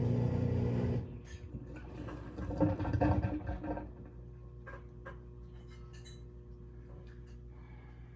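Whirlpool top-loading washing machine's motor humming steadily while the machine senses the load, stopping about a second in. It is followed by a few seconds of softer, uneven mechanical noise and then a faint hum with light clicks.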